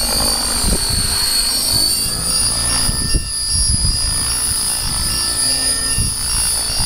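RC model helicopter flying and hovering low, its rotors and drive giving a steady high-pitched whine over a gusty low rumble.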